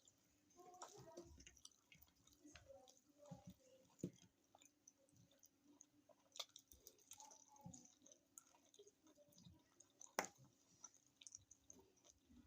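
Close-miked chewing of food, with soft wet mouth sounds and irregular small clicks. Sharper clicks stand out about four seconds and about ten seconds in, the one near ten seconds the loudest.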